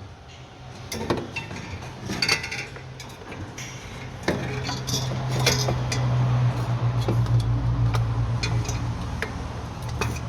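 Metal clinks and knocks of tools and parts being handled while a car's starter motor is fitted back in place, with a steady low hum coming in about four seconds in.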